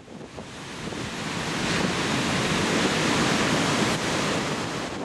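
Sea surf breaking and washing on a beach, a steady rushing that rises in over the first second or so, with wind buffeting the microphone.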